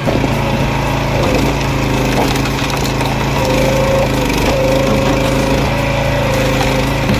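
Small petrol engine running steadily while wood cracks and splinters, as from an engine-driven wood-processing machine at work.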